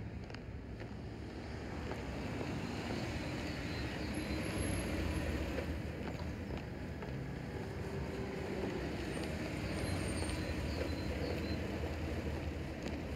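Steady low rumble of distant road traffic, with a few faint ticks over it.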